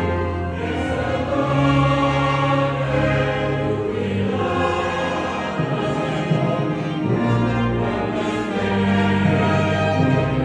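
Music: a choir singing with instrumental accompaniment, in long held chords.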